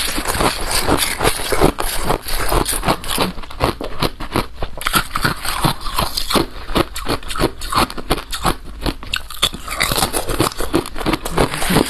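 Balloon ice (ice frozen in a balloon) being bitten and chewed, with rapid, sharp crunches several times a second.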